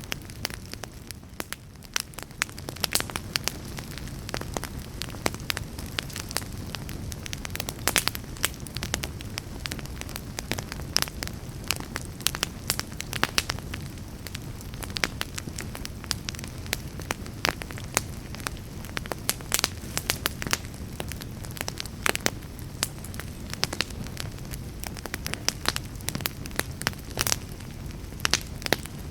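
Fireplace fire crackling, with frequent sharp pops and snaps over a steady low rumble of the flames.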